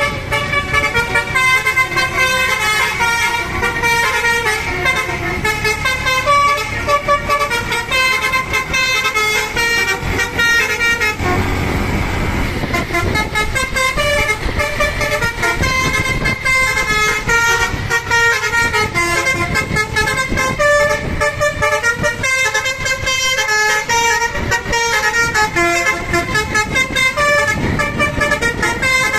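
A bus's Basuri telolet horn playing a long, fast run of melodic air-horn notes, the pitch stepping up and down every fraction of a second. A brief rush of noise comes about eleven seconds in.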